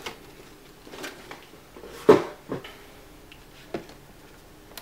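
A cardboard product box being handled and lifted out of its shipping carton: a few short knocks and scrapes, the loudest about two seconds in.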